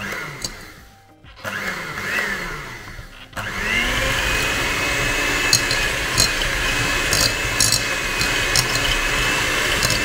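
Electric mixer beating softened butter and sugar: it starts, stops briefly about three seconds in, then runs steadily with a high whine that climbs and then holds, with occasional clicks of the beaters against the bowl.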